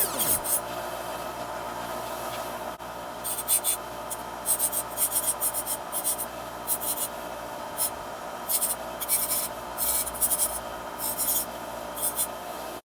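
Hand file stroked across the steel teeth of a sawmill bandsaw blade to sharpen it: short rasping strokes, about two a second, starting about three seconds in, over a steady hum.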